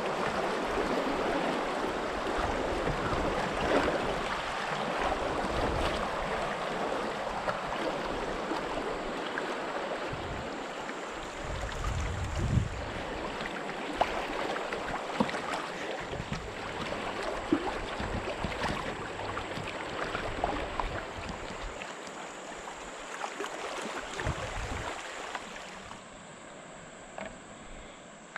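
River water splashing and rippling around a canoe, with scattered small knocks and intermittent low gusts of wind on the microphone. It gets quieter near the end.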